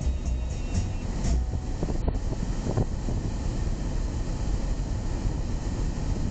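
Steady low rumble of tyre and engine noise inside a car's cabin while driving along a paved road.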